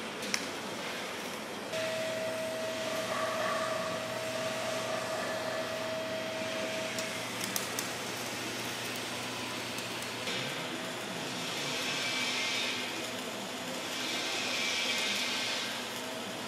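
Arc welding on stainless-steel tank fabrication: a steady hiss, with a steady high whine over its first few seconds and a couple of sharp clicks. In the second half the hiss swells and fades twice.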